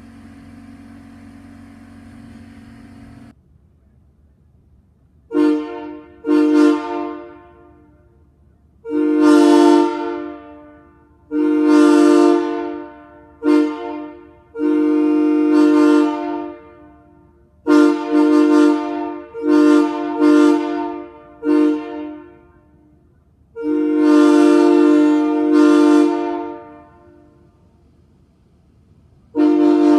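Salvaged railroad locomotive air horn sounding a chord in a series of blasts: two short toots, then a run of longer and shorter honks, the longest held for about three seconds, each building up quickly at the start.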